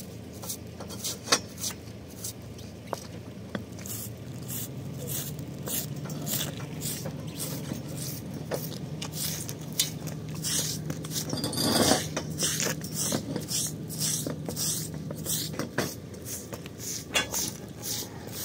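Straw broom sweeping wet concrete in quick repeated strokes, about two a second, with a few sharp clinks of steel tent-frame pipes being handled.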